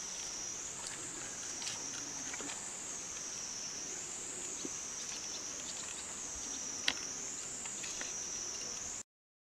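A chorus of insects: a steady high shrill that rises and falls in pitch about every second and a half, with a few light ticks and one sharp click near the end. The sound cuts off just before the end.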